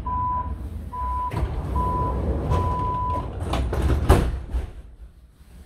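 Athens Metro Line 1 train's door-closing warning: three short beeps and a longer fourth at one steady pitch, then the sliding doors bang shut about four seconds in, over the train's low steady rumble.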